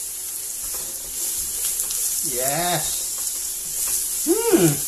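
Chopped onion, bell pepper and chili sizzling in a little oil in a non-stick frying pan, stirred with a spatula. The sizzle is a steady hiss.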